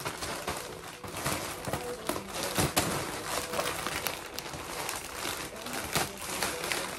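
Plastic poly mailer bag rustling and crinkling with many short crackles as it is handled and pulled open.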